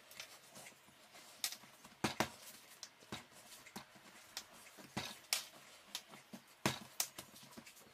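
Hands kneading a firm egg-and-flour dough on a countertop: irregular soft slaps and knocks as the dough is pressed, folded and pushed against the counter.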